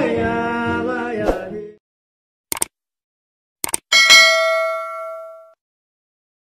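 Singing with acoustic guitar breaks off about a second and a half in. Then come two short clicks and a bright bell ding, the subscribe-button notification sound effect, which rings out for about a second and a half.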